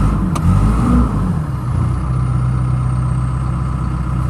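Caterpillar 450E backhoe loader's diesel engine revved briefly, its pitch rising and then falling back over about a second and a half, then running steadily, with a faint high whine sliding down as it settles. The engine sounds healthy.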